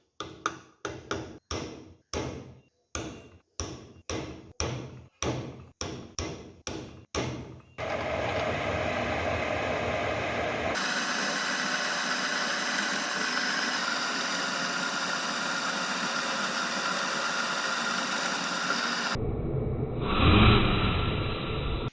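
Repeated hammer blows, about two a second for some eight seconds, then a steady harsh machine noise that changes abruptly twice.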